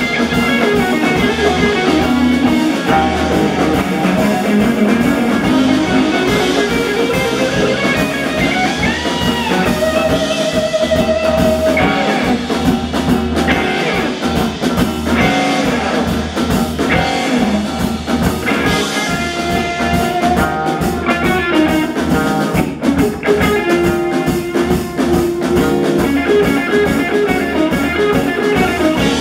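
Live rock band playing an instrumental passage: electric guitar lead lines with held and bent notes over bass guitar, rhythm guitar and drum kit.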